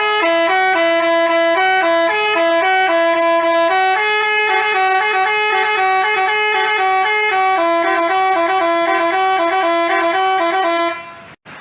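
Telolet basuri horn playing a quick, bouncing tune of stepped notes, a few each second, then cutting off abruptly near the end.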